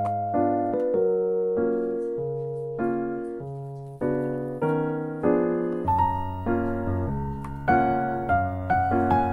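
Background piano music: a melody of single notes over chords and slow bass notes.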